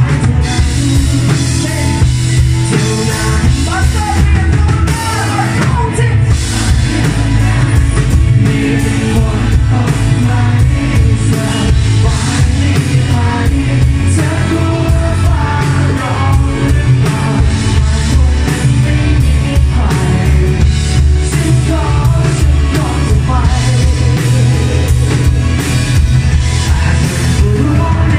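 A rock band playing live: drum kit, bass, electric guitars and keyboard under a male lead vocal, loud and steady throughout.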